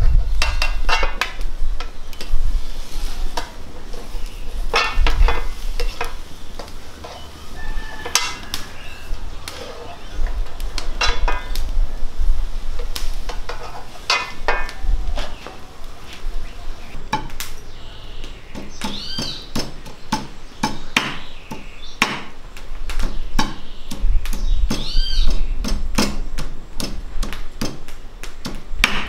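A metal spoon clinking and scraping against a metal cooking pot, with many sharp clinks, as steamed bitter melons are lifted out of the water one by one.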